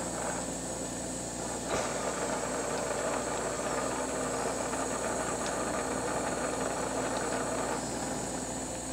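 Glassworking bench torch burning with a steady hiss over a steady hum, with a single click about two seconds in.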